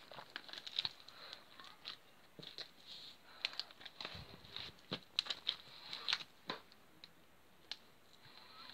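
Slime being kneaded and squeezed by hand, making a run of small, irregular sticky pops and clicks.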